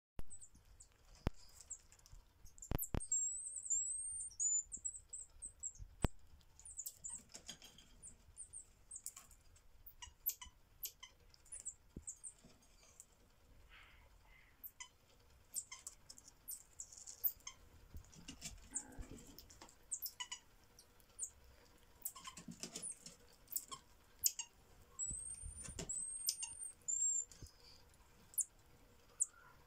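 Common marmosets giving short, very high-pitched arching chirps, in a quick run about three seconds in and again near the end, amid scattered sharp clicks and taps.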